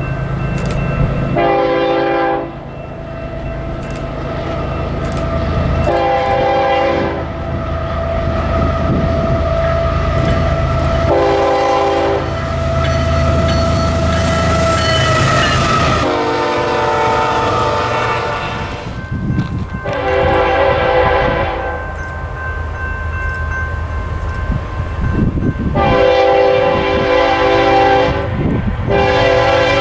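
Nathan AirChime K5HL five-chime air horn on a diesel locomotive sounding a series of blasts, some about a second long and some held for a few seconds. The locomotive's engine and the wheels on the rails run beneath the horn.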